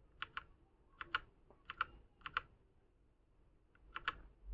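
Gamepower Overlord 60M mechanical keyboard with brown switches, keys pressed one at a time: five separate presses, each a quick double click as the key bottoms out and springs back. The first four come about every half second, then a pause of over a second before the fifth, near the end.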